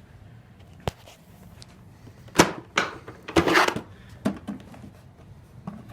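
Sharp clicks and knocks of hard plastic parts on an upright vacuum cleaner being handled, with a short scraping rustle in the middle; the motor is not running.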